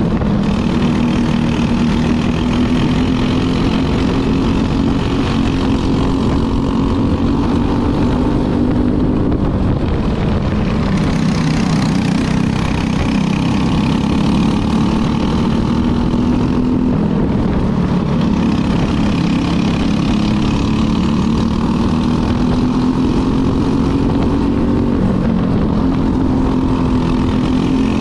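Racing go-kart engine running hard on track, its pitch climbing slowly along the straights and dropping away three or four times as the throttle lifts for corners.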